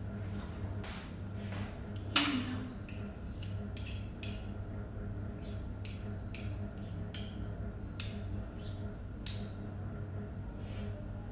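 A metal spoon clinking and scraping in a ceramic bowl as food is stirred, with a sharp ringing clink about two seconds in, over a steady low hum.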